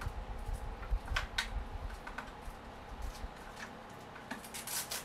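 Handling noise as a battery pack is worked into the Arrma Outcast 8S RC car's battery tray: low rumble with a few sharp plastic clicks about a second in, then a burst of scraping clicks near the end. The battery is a tight fit and hard to get in.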